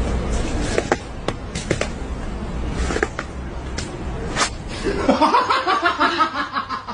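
A low rumbling noise with a few sharp clicks, then a person laughing in quick repeated bursts from about five seconds in.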